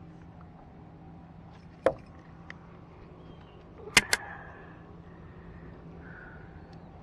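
Sharp clicks and knocks as a hooked bass is handled and a spinnerbait's hook is worked free of its mouth, loudest as a quick pair about four seconds in, over a steady low hum.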